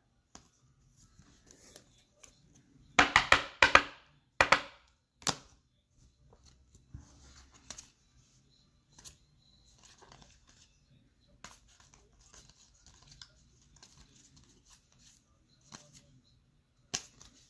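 Foil trading-card pack being torn open: a few quick loud rips about three to five seconds in, followed by faint crinkling and rustling of the wrapper and cards.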